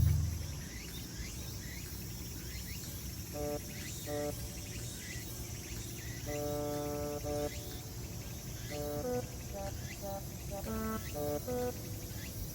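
Sparse background music, short held notes in small groups, over steady chirring of insects such as crickets with faint repeated rising chirps.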